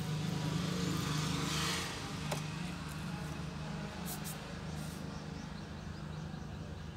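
A steady low mechanical hum, with a short rush of hiss about a second in and a sharp click a little after two seconds.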